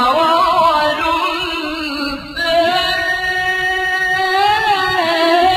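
Melodic Quran recitation (tajweed): one reciter's voice drawing out long, ornamented notes, with a short break about two seconds in before the next held phrase.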